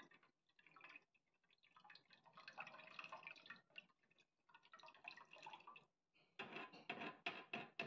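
Thick canned cream being poured and spooned out of a small can into a saucepan of milk, making a faint trickling and dripping. Near the end comes a quick run of sharp clicks as the can and spoon are worked.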